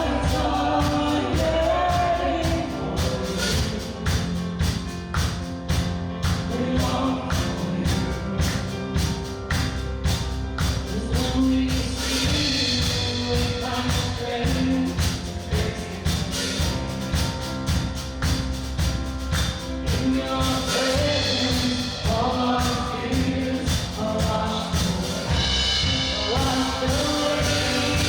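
Live worship band and singers performing a song, with voices singing together over a steady drum beat and bass.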